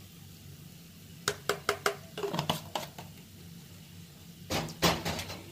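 Kitchen utensils tapping and clattering while spice powder is added to a pan: four quick sharp taps about a second in, a short clatter, then two louder knocks near the end, over a faint steady hum.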